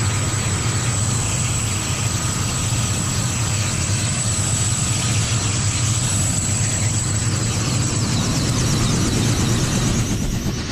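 Kamov Ka-226 helicopter running on the ground, its twin turbine engines and coaxial rotors making a steady loud drone with a thin, constant high turbine whine on top.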